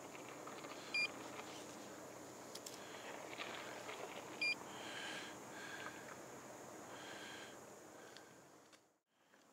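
Two short electronic beeps, about three and a half seconds apart, from a portable fish-finder echo sounder set on the ice beside the hole, over faint open-air ambience. The sound fades out near the end.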